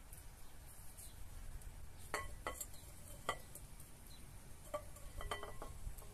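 A ceramic plate and a glass mixing bowl clinking as raw chicken pieces are moved from the plate into the bowl. There are several light clinks with a short ring, spread through the second half.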